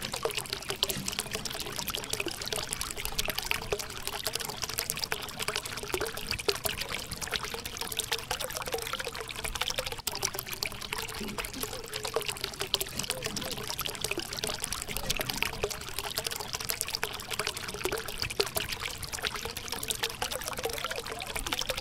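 A thin stream of water pouring steadily from a small pipe onto wet sand and splashing into a puddle, pushed up by a mini submersible pump.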